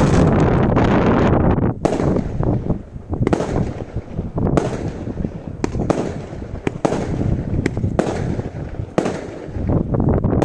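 Category 2 and 3 consumer fireworks going off in quick succession. A dense run of bangs and crackling thins out about two seconds in to separate sharp bangs, then builds into a dense barrage again near the end.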